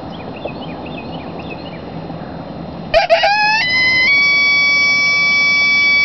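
Barnett Tribute Howler, a mouth-blown coyote howler call, blown at a high pitch. About three seconds in, it breaks in with a short rising yelp, then settles into one long, steady, high howl. Before that there is only road noise.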